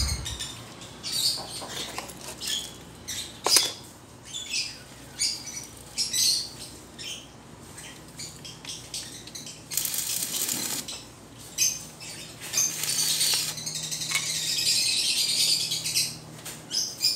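Electric arc welding on a steel window grill: a run of short crackling hisses, then a steady arc crackle lasting about four seconds near the end, with a faint hum from the welding machine beneath it.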